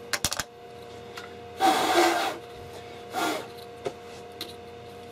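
Hands rubbing and knocking a polycarbonate tube's freshly trimmed edge to clear loose plastic shavings: a few quick clicks, then two scraping rubs, the first longer and louder.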